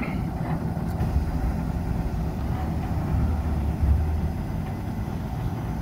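Heavy engine running with a low, steady rumble, a little louder in the middle, at a hydraulic truck dump as the tilted platform carrying a tractor-trailer lowers back toward level.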